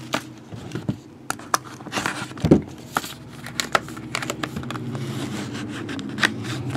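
Hands handling and opening a Leaf Pop Century 11x14 trading-card box, with scattered light clicks and knocks over handling noise and a low steady hum.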